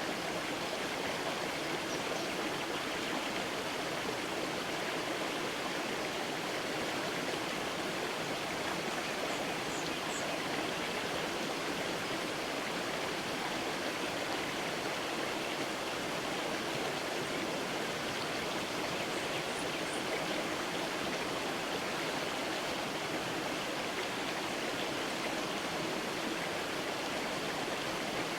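Creek water flowing steadily, an even rushing sound with no change.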